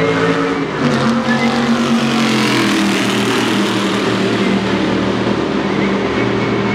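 6,200 cc V8 stock race car running hard on track, its engine note stepping down in pitch about a second in and then sinking slowly.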